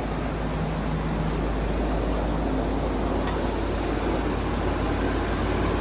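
Steady running of HVAC equipment: a constant low hum under an even rush of air.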